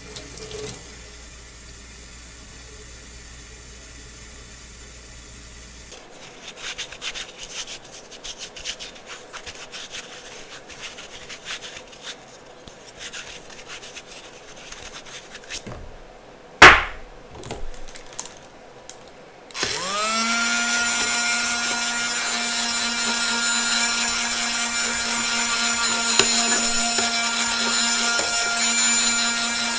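Scratchy, clicky rubbing sounds with one sharp knock about halfway through. Then a small electric power tool's motor spins up and runs steadily with a rasping whine through the last third.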